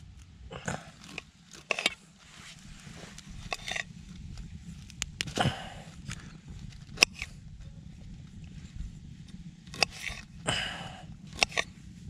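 Broccoli being cut with a knife over a metal camp pot: irregular sharp clicks and taps of the blade against the pot, with short crunching and rustling sounds in between.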